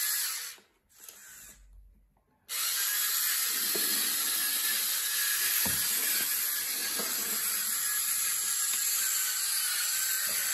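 Small DC gear motor of a homemade RC tractor whirring steadily as the tractor drives, with a few faint knocks in the middle. The sound drops out briefly from about half a second to two and a half seconds in.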